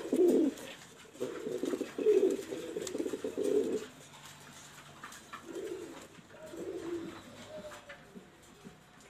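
Pouter pigeons cooing: deep, pulsing coos, loudest in the first four seconds, with a few softer coos after the middle.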